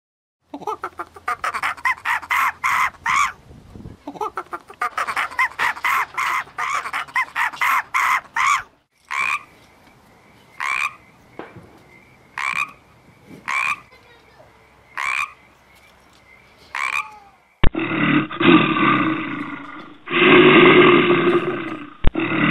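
Frog croaking: two long runs of rapid, trilled croaks, then single short croaks about every second and a half. About eighteen seconds in, a sharp click, and a loud growling roar of a large animal takes over.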